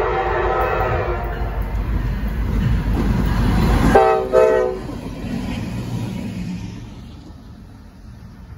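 Two Norfolk Southern diesel locomotives pass close by. A long horn blast fades out about a second in, the engine and wheel rumble builds as they approach, and a short, loud horn blast sounds about four seconds in as the lead unit goes by. The rumble then fades away as they recede.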